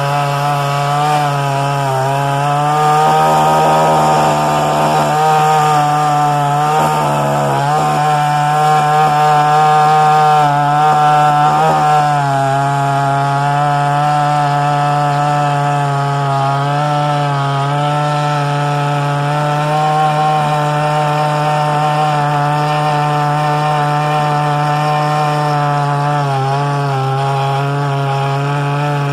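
Procraft GS52T two-stroke petrol chainsaw running at high revs while cutting through a thick log. Its engine note dips and wavers several times as the chain is loaded in the wood.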